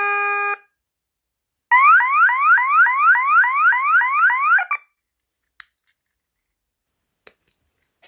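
KERUI alarm's wired siren horn: a steady beep ends about half a second in, then the siren sounds a fast, repeating rising whoop, about three to four a second, for some three seconds before cutting off abruptly. The armed system has been set off by its motion sensor, and the siren is silenced with the key fob.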